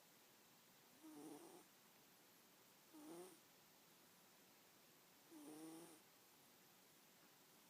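A sleeping cat snoring: three short, soft snores, each under a second, spaced about two seconds apart.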